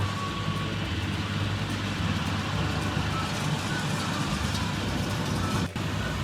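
Tractor engine running steadily under load while pulling a round hay baler through the field, with a low, even hum. The sound drops out briefly near the end.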